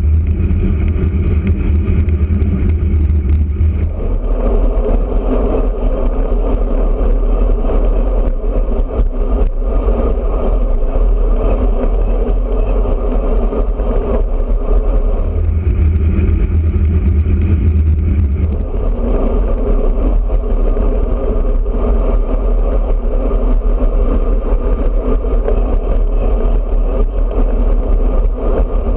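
Wind rushing and buffeting over the microphone of a bike-mounted action camera while a road bike rides at speed. The rumble is heavy and low in some stretches and lighter and higher in others, changing about four seconds in and twice more past the middle.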